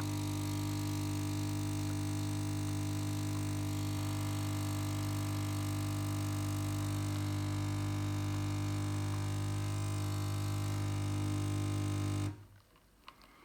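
Nespresso capsule machine's pump running with a steady hum while brewing, cutting off suddenly about twelve seconds in as the brew ends.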